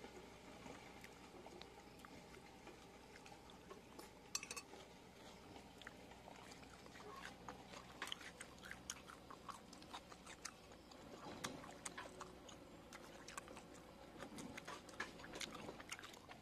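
People eating: faint chewing with scattered small clicks and clinks of tableware, one sharper clink about four seconds in, over a faint steady hum.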